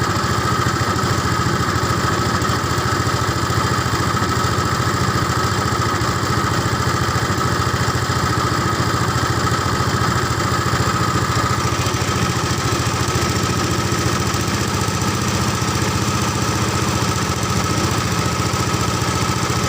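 A small engine running at a steady speed, with a thin high whine over it.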